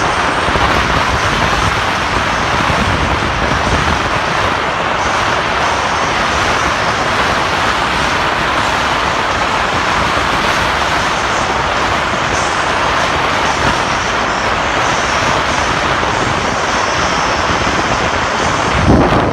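Steady wind noise on the microphone while riding a Onewheel into a cold beach wind, with a shifting low rumble. A brief low thump comes just before the end.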